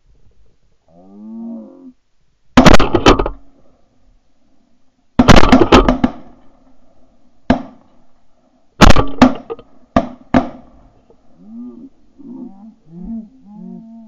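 Several shotguns fired at Canada geese passing overhead: a quick volley of shots about two and a half seconds in, another volley near five seconds, then single and paired shots through about ten seconds. Goose honks come just before the first volley and again in a string of short honks near the end.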